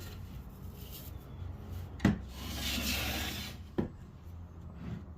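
A tool scraped in one long stroke along a red oak board, with a sharp knock as it starts and another as it ends.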